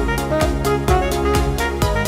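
Background music with a steady beat, about two beats a second, over sustained instrumental tones.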